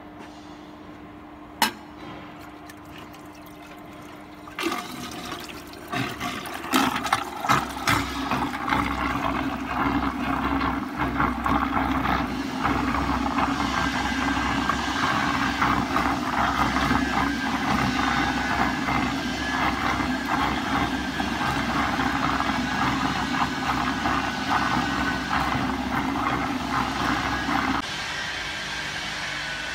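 Lab vacuum homogenizer mixer at work: a steady motor hum, then from about five seconds in a loud rush of liquid churning and splashing inside its stainless mixing tank, with a few knocks early on. It cuts off suddenly near the end.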